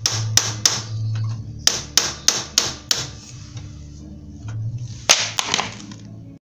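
Hammer striking metal on the clutch side of a Honda Win 100 motorcycle engine: three sharp taps, then a run of five at about three a second, a pause, and three more near the end, over a low steady hum.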